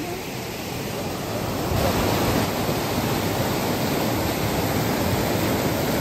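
Rushing water of a mountain stream cascading over limestone boulders, a steady roar that grows louder about two seconds in.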